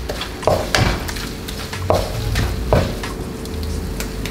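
Food sizzling as it is stir-fried in a non-stick wok, with a spatula scraping and knocking against the pan about four times.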